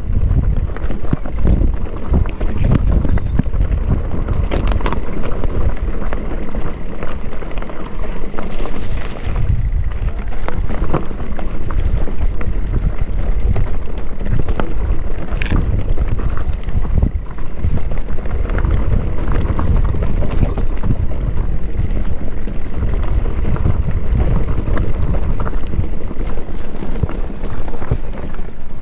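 Wind buffeting the microphone over the continuous rumble of a mountain bike riding a rough trail, with frequent small rattles and knocks from the bike.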